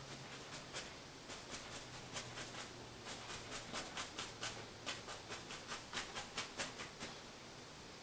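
A 2-inch paint brush dabbed over and over against a painted canvas, making faint soft taps about four a second.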